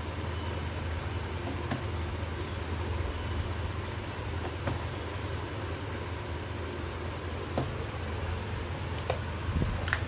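Steady low mechanical hum of room machinery, with a few light clicks and taps as wires and a screwdriver are worked into the panel's terminal blocks.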